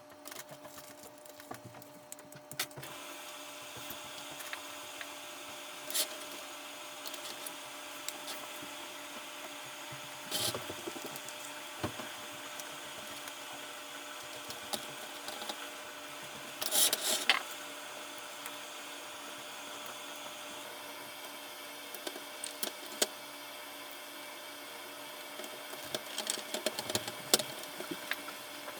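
Scattered light clicks, taps and scrapes of small hand work on a plastic toy at a workbench, over a steady background hum; a few louder clusters of clicks stand out around a third of the way in, past the middle, and near the end.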